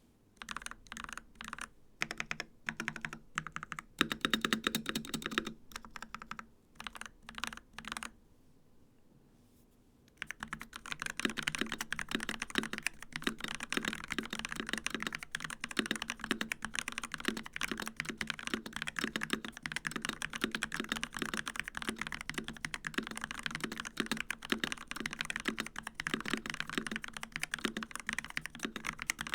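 Asus Strix Scope II 96 Wireless mechanical keyboard with ROG NX Snow linear switches being typed on: separate keystrokes and short runs at first, a pause of about two seconds, then fast continuous typing.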